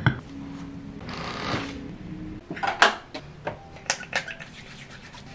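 Small household objects being handled: scattered light clicks and knocks, a short soft rustle about a second in, and a few sharper clicks near three and four seconds in.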